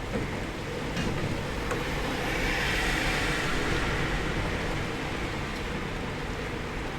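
Steady rainfall heard from indoors, a continuous hiss with a couple of faint drip ticks. Partway through, a louder hiss swells up and fades away again.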